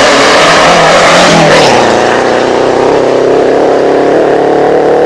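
Small hatchback rally car's engine running hard at high revs as the car drives flat out up a special stage and passes close by. The pitch drops about a second and a half in, then holds steady.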